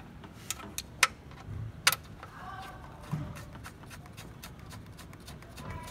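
Hand-fitting a small bolt into the metal bracket of a plastic engine-bay reservoir: sharp clicks and knocks, the loudest about one and two seconds in, then a run of faint rapid ticking near the end.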